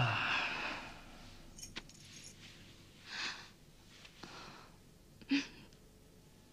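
Faint rustling and light clinking, like cloth and jewellery moving, with a few soft breaths. A short swell of noise at the very start fades within about a second.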